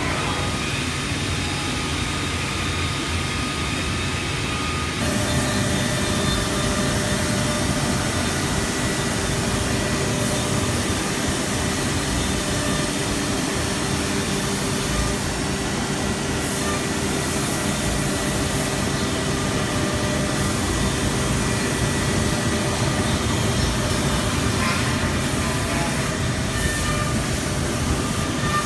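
Busellato CNC machining centre running with a steady mechanical drone carrying several constant tones, growing louder about five seconds in.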